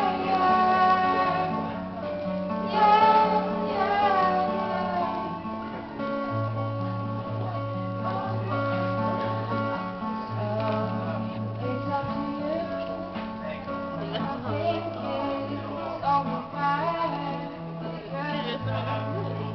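Live music: guitar accompaniment with a singing voice on bending, wordless notes in the first few seconds, then the guitar carries on over a steady, repeating bass line.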